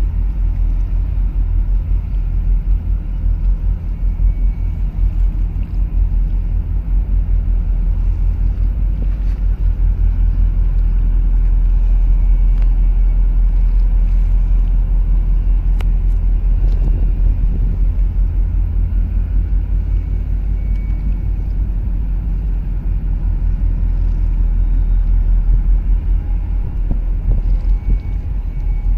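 Steady low rumble of a boat's engine running under way, heard from on board.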